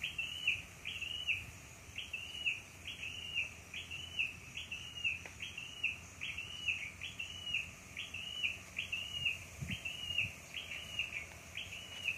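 A bird calling, one short high note repeated steadily about twice a second.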